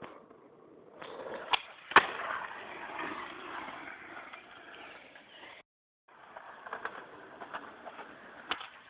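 Skateboard wheels rolling on asphalt, with sharp clacks of the board, the loudest about two seconds in. The sound cuts out for half a second just past halfway, then the rolling picks up again with a few lighter clicks.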